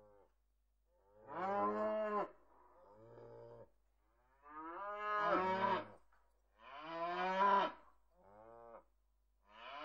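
Dairy cows mooing over and over: a string of drawn-out moos every second or two, the louder calls alternating with fainter ones.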